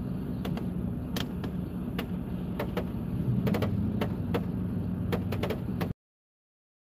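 Steady low hum of a car heard from inside the cabin, with scattered sharp ticks over it; the sound stops abruptly near the end.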